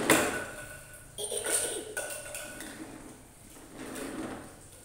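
Hard plastic knocking and clattering from a large plastic toy dump truck and toy shovel on a tile floor: a sharp knock right at the start, another clatter with a brief ring about a second and a half in, then softer handling sounds.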